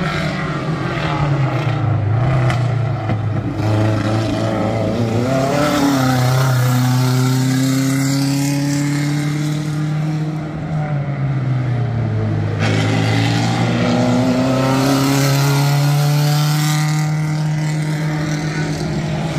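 Vintage sports-car racing engines of under 2 litres, running hard on the circuit, their note falling and rising several times as they brake, change gear and accelerate.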